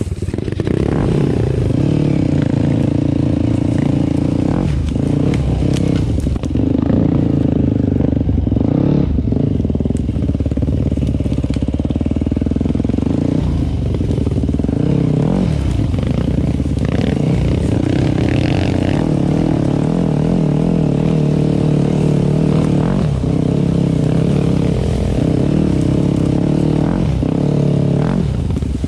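Yamaha WR 250 F four-stroke single-cylinder dirt bike engine running at low and middle revs on a trail ride. Its pitch rises and falls as the throttle is opened and rolled off, with clattering knocks from the bike over rough ground.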